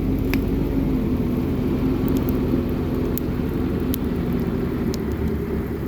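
Wood bonfire burning: a steady low roar from the flames with a handful of sharp crackles and pops, the clearest about a third of a second in.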